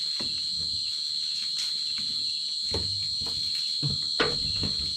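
Steady, high-pitched chirring of night crickets, with a few short crackles and knocks from a wood cooking fire.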